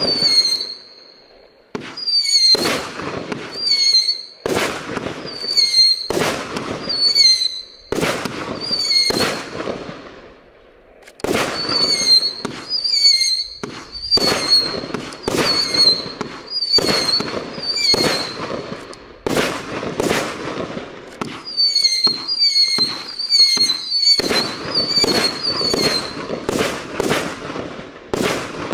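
Nico 'Dresden' 36-shot 25 mm firework battery firing: a steady string of launch thumps and bursts, about one to two a second, many followed by short high whistles. There is a brief pause about ten seconds in.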